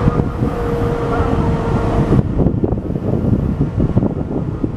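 Davit winch motor running with a steady whine, which cuts off about two seconds in as the rescue boat stops moving. After that, wind gusts buffet the microphone.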